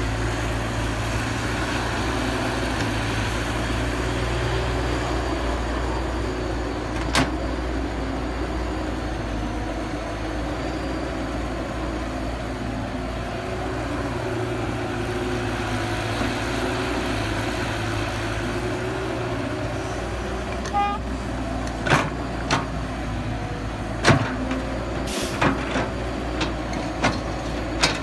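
CAT 312B hydraulic excavator's diesel engine running steadily while it digs and loads soil. There is one sharp knock about seven seconds in and a run of sharp clanks and knocks in the last several seconds.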